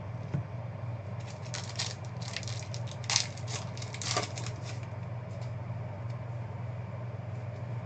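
Trading cards being handled and flicked through by hand: a run of light clicks and rustles for a few seconds, then a few fainter ticks, over a steady low hum.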